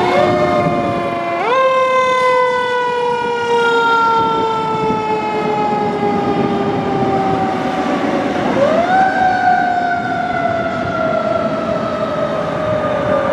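Fire truck siren. Its pitch jumps up quickly about a second and a half in and again about eight and a half seconds in, each time falling slowly, over the rumble of the trucks driving past.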